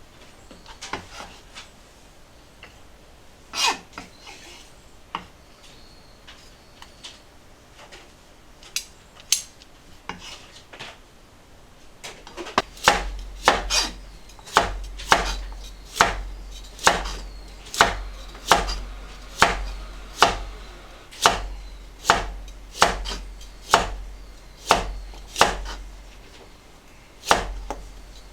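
Knife chopping on a cutting board: a few scattered cuts at first, then from about halfway a steady chop roughly once a second, each stroke landing with a dull knock on the board.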